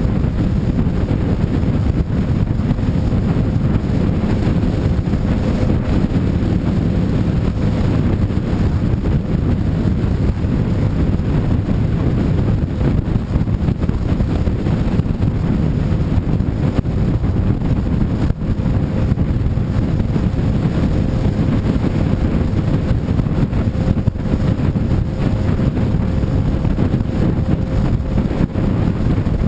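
Motorcycle riding steadily at road speed: loud wind rush buffeting the bike-mounted camera's microphone, mixed with engine and road noise, with a faint steady hum.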